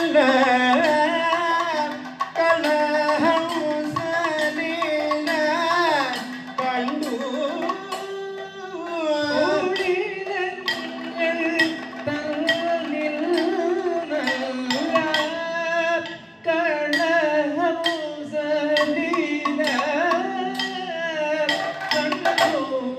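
Kathakali music: ornamented singing that glides between notes, accompanied by drumming from the chenda and maddalam.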